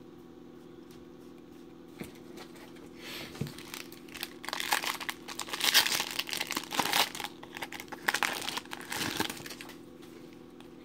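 A foil-lined trading-card pack wrapper crinkling and tearing as it is pulled open by hand, in a run of crackling bursts from about three seconds in until about nine seconds in. A faint steady hum sits under it throughout.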